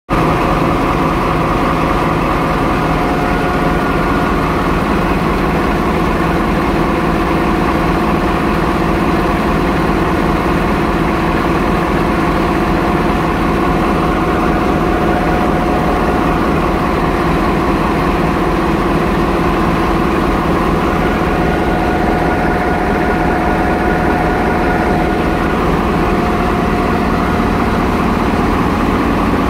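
Class 35 Hymek diesel-hydraulic locomotive running steadily, heard close up in the engine room: a loud, even machinery drone from the Maybach diesel engine and Mekydro hydraulic transmission driving the spinning drive shaft, with a steady high whine over it.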